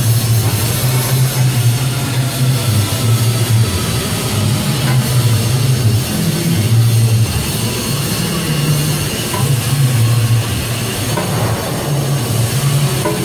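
Pneumatic impact wrench working the bolts of a rubber-tipped airlock's wear liner: loud, continuous mechanical noise with a low hum that surges and drops every second or so.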